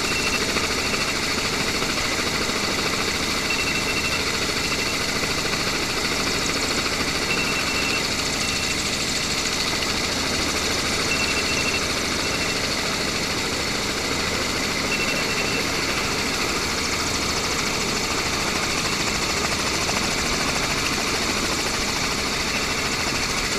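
Steady mechanical engine hum, even in level throughout, with a short high double beep repeating about every four seconds.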